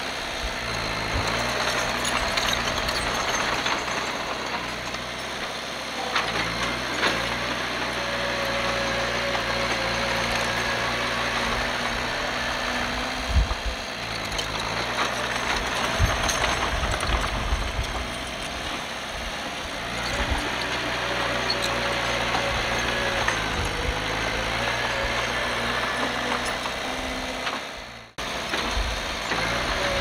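Diesel engine of a Komatsu D51PX bulldozer running steadily, its engine speed rising and falling several times as it works. The sound cuts out briefly near the end.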